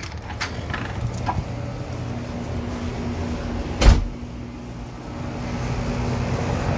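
Steady low hum of an outdoor air-conditioner condenser unit running, with a single sharp knock about four seconds in, like a door shutting.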